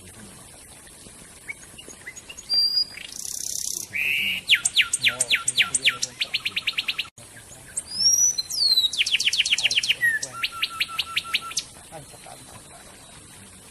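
Songbird singing two loud phrases, each a fast run of sharp, falling whistled notes that speed up towards the end, the second phrase following about a second after the first.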